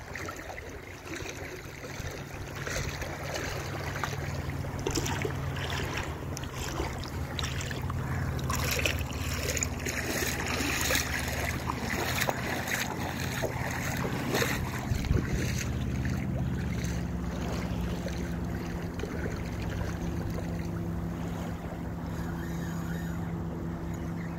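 Wind buffeting the microphone over shallow water lapping, with a steady low hum underneath and irregular gusty rushes, strongest in the middle.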